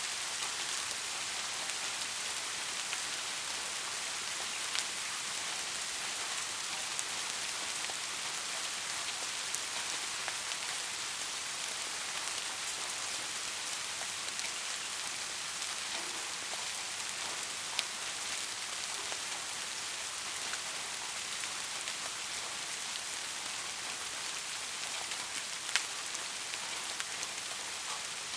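Steady rain falling, an even hiss with individual drops ticking on a surface now and then, one sharper drop near the end.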